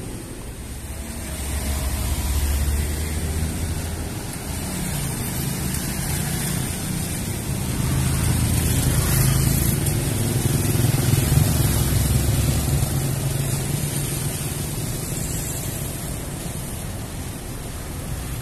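Road traffic: cars driving past, their engine and tyre noise swelling up a couple of seconds in and again, longer and louder, around the middle.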